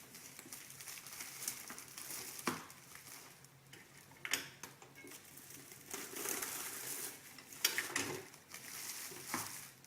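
Plastic shrink film being sealed on a hand-pressed impulse sealer and torn: a few sharp clacks of the sealer arm and handling, with the film crinkling and rustling in between.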